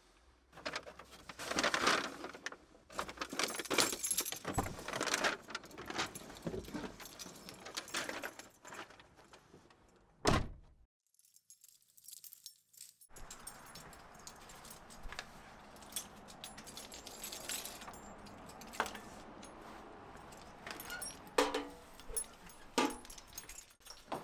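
Keys jangling with rustling and handling clicks, and one loud thump about ten seconds in. Then a faint steady background with a few sharp clicks near the end as the front door is unlocked and opened.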